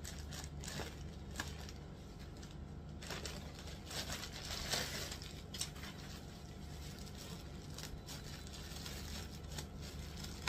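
Plastic packaging crinkling and rustling in the hands as a folded kurta set is unwrapped and pulled out of its bag, in irregular bursts with small crackles.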